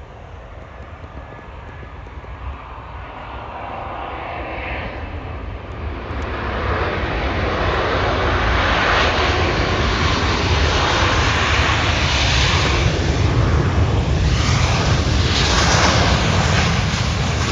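Jet engines of a Delta Boeing 737 landing and rolling out on the runway. The engine noise builds over the first several seconds, then stays loud and steady until it eases slightly near the end.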